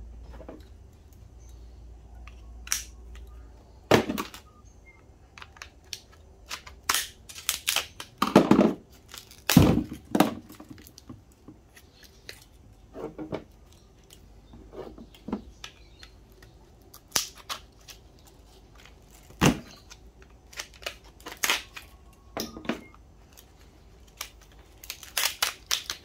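Irregular knocks, cracks and snaps as a CRT television's deflection yoke is broken apart by hand with a screwdriver and hammer: its plastic housing and ferrite core cracking and pieces knocking on the bench. The loudest cracks come about eight to ten seconds in and again near twenty seconds.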